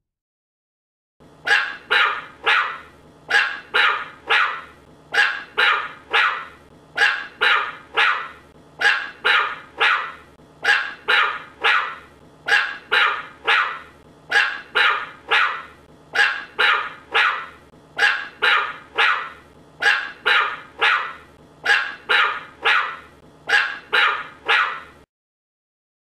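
Puppy barking: short, sharp barks repeated about twice a second in quick runs. The barking starts about a second in and stops about a second before the end.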